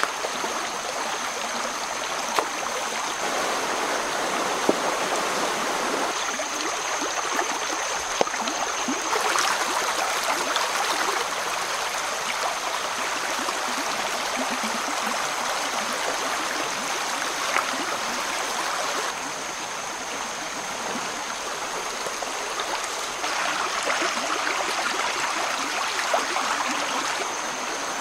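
A forest stream running steadily over rocks, its level stepping up and down a few times. A thin, steady high-pitched tone sits above the water, and a few sharp clicks stand out.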